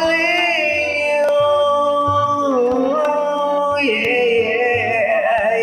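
A man singing long held notes with vibrato, without clear words, over a karaoke backing track with a steady drum beat. The note drops in pitch about two and a half seconds in and rises again about four seconds in.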